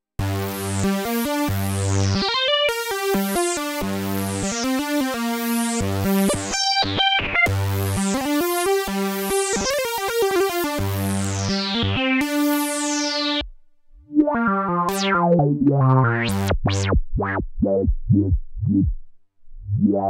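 Dave Smith Mopho x4 four-voice analog synthesizer played from its keyboard, recorded dry with no effects. Its bright, resonant patch has a filter that closes on each note in a falling sweep. A melodic line of notes breaks off about two-thirds through, then comes a run of short, choppy notes with quick rising and falling sweeps.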